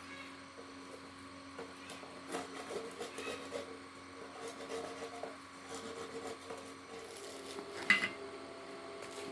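Light clinks and scrapes of steel pieces being handled, with one sharper metallic clank about eight seconds in, over a steady low hum.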